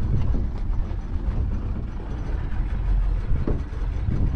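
Low, irregular rumble of wind buffeting the microphone on a small open boat at sea, with a short knock about three and a half seconds in.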